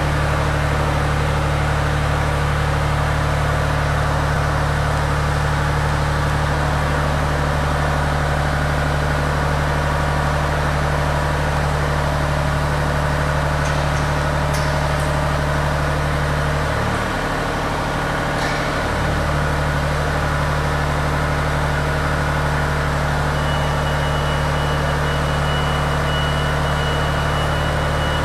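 Engine of an articulating boom lift running steadily with a low hum, which changes pitch for a couple of seconds about two-thirds of the way through. A thin, steady high tone joins near the end.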